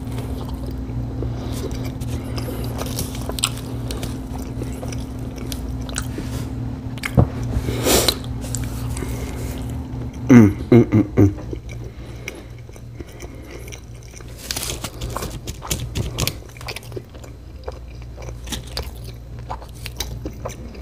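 Close-miked chewing and biting of fast food, with scattered crunchy clicks over a steady low hum that stops about halfway. About ten seconds in come a few loud, short throaty sounds.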